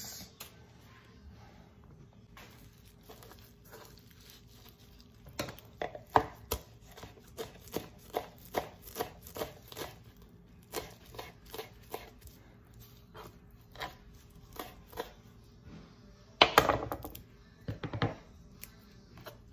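Kitchen knife chopping fresh mint leaves on a cutting board: a run of short taps, about two to three a second. There is a louder, longer noise near the end.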